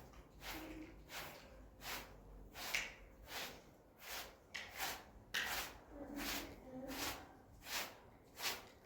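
Repeated short scuffing and rustling noises, one or two a second.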